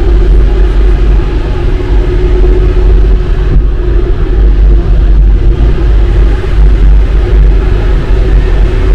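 Alstom MP-05 rubber-tyred metro train running, a loud steady rumble with a constant droning tone over it.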